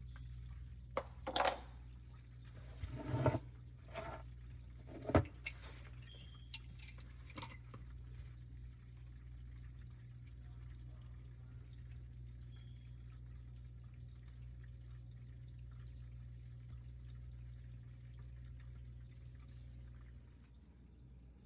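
Whirlpool dishwasher's drain pump running steadily, pumping the standing water out of the tub now that the drain is cleared. A few sharp knocks and clatters come in the first several seconds, and the hum drops off near the end.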